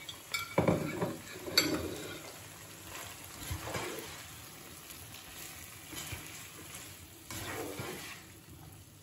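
Sliced peppers and carrots sizzling in a non-stick frying pan while a slotted spatula stirs them, knocking and scraping against the pan, loudest in the first two seconds.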